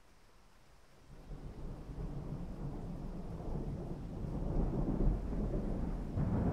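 Thunder from an approaching thunderstorm: a low rumble that begins about a second in and builds steadily louder.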